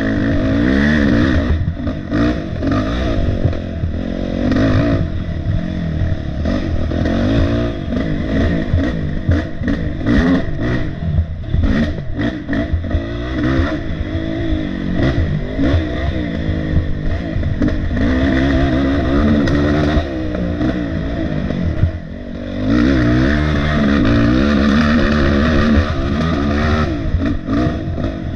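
Dirt bike engine revving up and down continuously as the throttle is worked, with frequent sharp knocks from the bike over the ground. About 22 seconds in the engine drops off briefly, then revs hard again.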